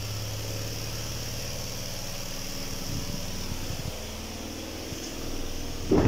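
Mika twin-tub washing machine's spin dryer running with a steady motor hum while it spins the clothes, and water draining out through its hose.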